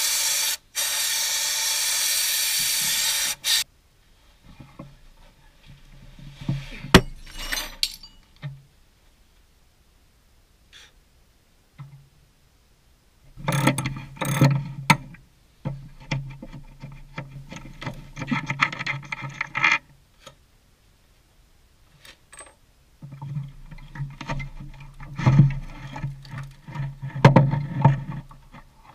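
Aerosol freeze-release spray hissing onto a seized pitman arm and its puller for about three and a half seconds, with a brief break near the start. After that come scattered metal clanks and two longer stretches of scraping and rattling, from spanner and puller work on the steering box.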